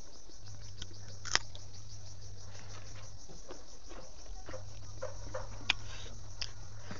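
Close-miked eating sounds: chewing, wet mouth clicks and lip smacks, and the soft patter of fingers mixing rice on a banana leaf, with two sharper clicks and a low hum underneath.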